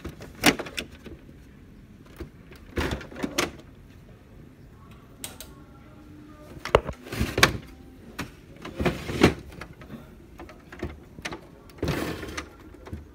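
Several separate plastic clunks and rattles from an HP Laser MFP printer's covers and parts being handled, coming at irregular intervals, the loudest about halfway through.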